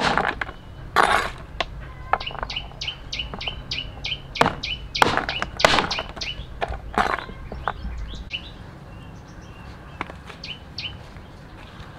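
A heavy cleaver chopping through chunks of fruit onto a cloth-covered ground, a few hard chops spread through the first seven seconds. Over it a small bird chirps again and again in a quick series, about three short high chirps a second.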